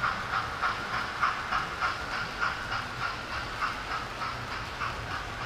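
Model train of Pullman coaches running on the layout's track, its wheels clicking regularly over the rail joints a little under twice a second, under a low steady hum.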